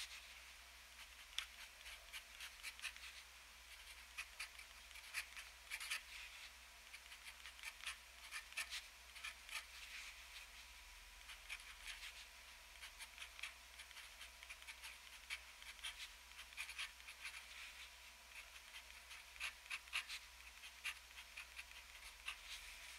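Faint scratching of a TWSBI ECO fountain pen's extra-fine steel nib on paper, writing Japanese characters in quick clusters of short strokes with brief pauses between them.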